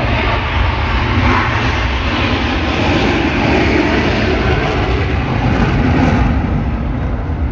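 Loud, steady jet engine noise of the Thunderbirds' F-16 Fighting Falcon fighters running at high power during their takeoff; it thins out slightly about six seconds in.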